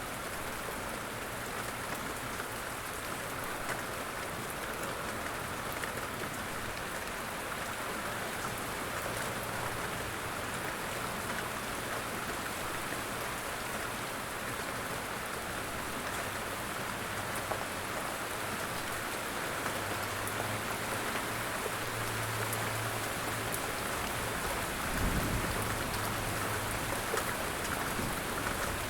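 Light rain falling steadily, a dense even hiss of drops pattering on a surface, with a brief low thud about 25 seconds in.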